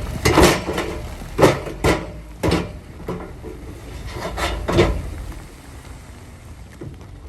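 Diesel engine of heavy earthmoving machinery running low and steady, with about seven loud, sharp clanks and knocks in the first five seconds, then easing off.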